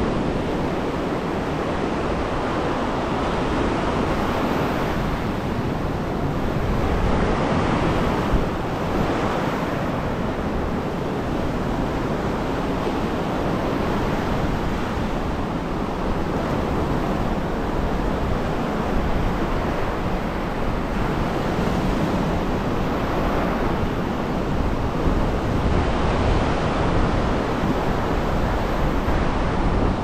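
Mediterranean surf washing onto the shore in a steady, continuous rush that swells now and then, with wind rumbling on the microphone.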